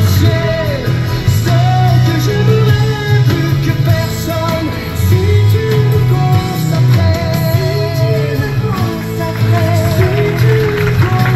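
Background music: a song with a sung melody of long, gliding held notes over a steady, heavy bass line.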